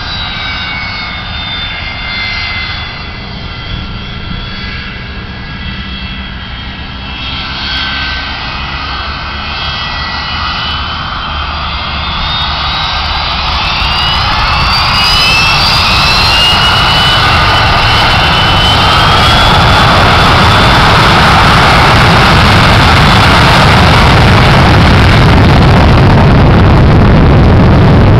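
Boeing 727-100's three Pratt & Whitney JT8D turbofan engines: a whine at low power, then spooling up to takeoff thrust about halfway through. The whine tones rise and the sound grows into a steady, loud jet rush as the airliner starts its takeoff roll.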